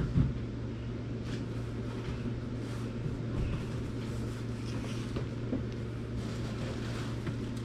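A shipping package being opened by hand: a knock at the start, then scattered light clicks and rustles of handling over a steady low hum.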